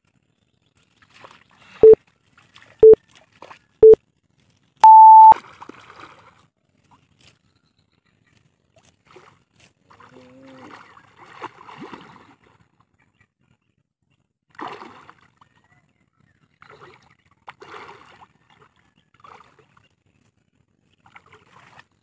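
Countdown beeps: three short beeps a second apart, then one longer, higher beep marking the start. Faint water splashing and sloshing follows as a person goes under the surface of a muddy pond.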